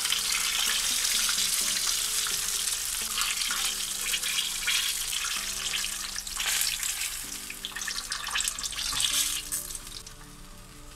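Flour-coated chicken drumsticks deep-frying in hot sunflower oil, a steady hissing sizzle, as a slotted spoon lifts the golden-brown pieces out of the pan. The sizzle dies down near the end as the pan empties.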